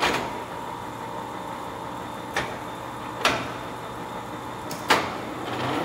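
Poreba heavy-duty engine lathe with its drive running in a steady hum, broken by four sharp clacks as its headstock buttons and levers are worked.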